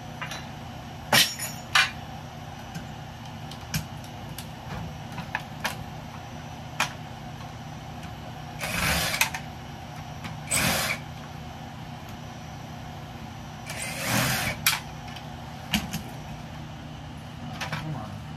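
Scrap metal being handled: scattered sharp clanks and knocks, with three short harsh bursts of noise about 9, 11 and 14 seconds in, over a steady low hum.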